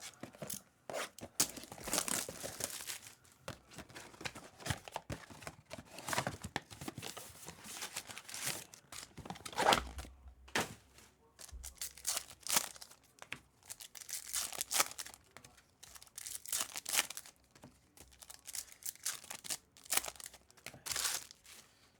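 Trading card packs being opened by hand: wrappers tearing and crinkling in irregular bursts.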